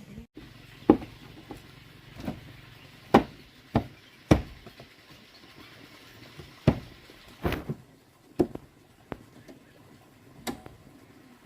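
A series of sharp knocks and clicks, about a dozen, coming at irregular intervals roughly a second apart, like hard objects being set down or struck.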